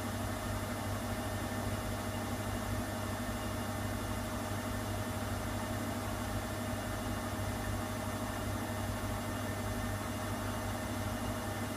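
Schulthess Spirit 6155 washing machine humming steadily, a constant low drone with a faint higher tone over it and no change in speed.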